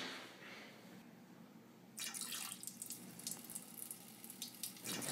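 A thin stream of liquid trickling and splashing into a urinal, starting about two seconds in and getting a little louder near the end.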